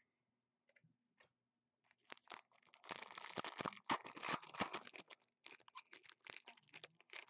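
Foil wrapper of a 2015 Panini Prestige football card pack being torn open and crinkled by hand. The tearing and rustling starts about two seconds in and is loudest in the middle.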